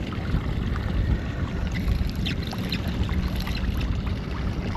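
Wind buffeting the microphone on a small fishing boat on open water: a steady low rumble with faint light ticks above it.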